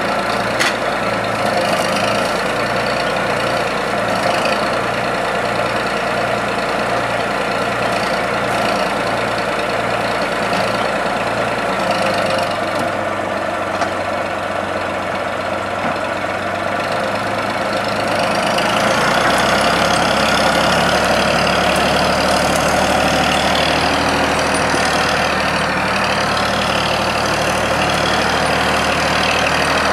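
Small forestry forwarder's engine running while its hydraulic crane loads logs, with a few sharp knocks. Roughly two thirds of the way in the engine speeds up and gets louder, and a wavering higher whine joins it.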